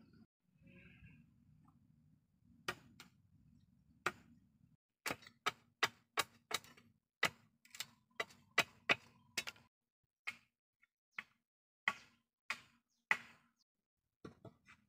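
Curved machete chopping at the end of a hand-held bamboo pole: a series of short, sharp chops, quickest in the middle at about two a second, then slowing and stopping near the end.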